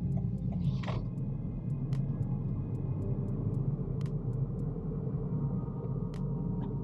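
Steady low rumble of road and tyre noise inside the cabin of a Toyota Corolla Hybrid driving along a city street, with faint light clicks over it.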